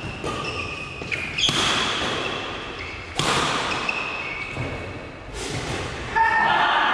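Badminton rally: sharp racket hits on the shuttlecock about every two seconds, each echoing in the hall, with short high squeaks of shoes on the wooden court between them. A louder, held pitched sound starts near the end.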